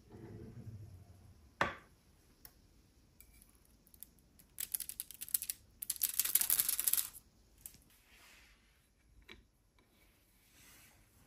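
Hand tools working leather at a bench: a sharp knock, then a quick run of ticks and about a second of scraping.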